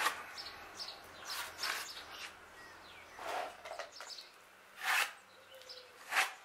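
Hand sanding block rubbing over fairing filler on a wooden keel timber, in about five short, irregularly spaced scrubbing strokes.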